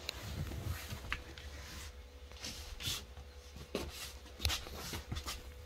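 Handling noise: scattered light clicks, knocks and rustles as things are moved about the chair, over a faint steady hum.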